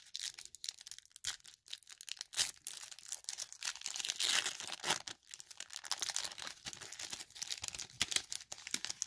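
Foil wrapper of a baseball card pack being torn open and crinkled by hand as the cards are worked out: an irregular run of sharp crackles.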